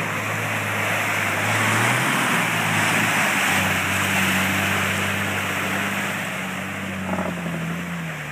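Nissan 4x4 engine working hard under load while ploughing through a deep, water-filled mud rut, its pitch stepping up about two seconds in and dipping then rising again near the end. Under it, a loud, steady hiss of churning water and mud.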